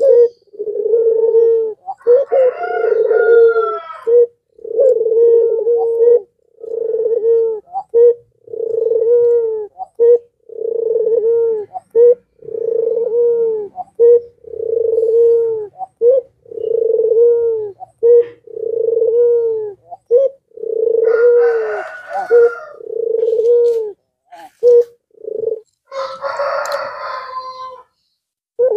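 Puter pelung, a domestic Barbary dove, cooing over and over in a deep, regular coo about once a second. Near the end a higher, harsher call from another bird cuts in twice.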